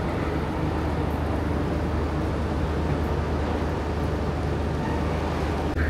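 Steady low drone of a ferry's engines, with an even hiss of wind and water over it.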